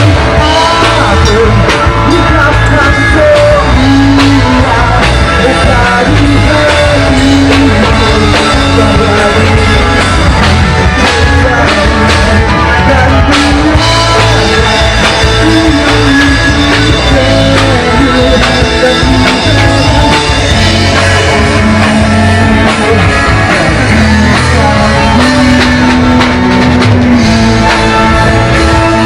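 Live rock band playing a song, loud and continuous, with a singer carrying the melody.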